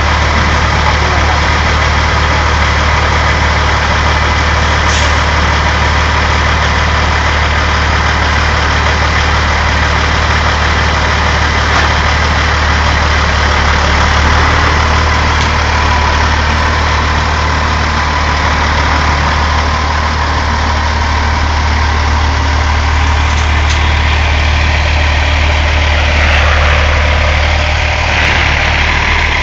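Peterbilt semi tractor's diesel engine idling steadily, with a strong low steady drone.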